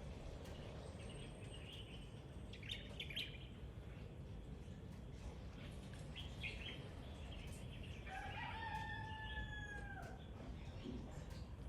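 A rooster crowing once, a long call of about two seconds that starts about eight seconds in and drops in pitch at the end, with small birds chirping briefly before it.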